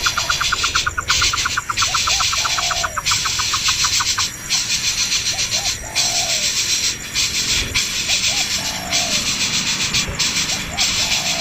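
Outdoor animal chorus: a high, rhythmic hiss pulsing about once a second, like cicadas or other insects, with a rapid run of even ticks in the first four seconds and short looping calls repeated every few seconds.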